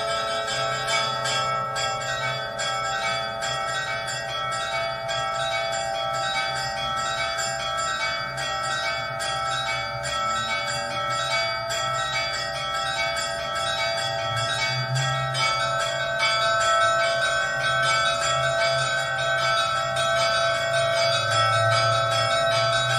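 Church bells pealing: many bells struck in quick succession, their tones ringing on and overlapping.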